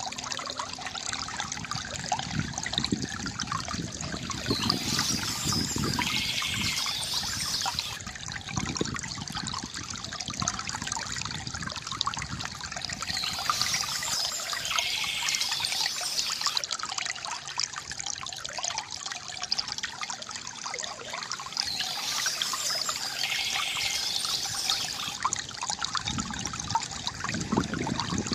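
Stream water trickling and splashing steadily, with a brighter, higher stretch of sound coming back about every nine seconds.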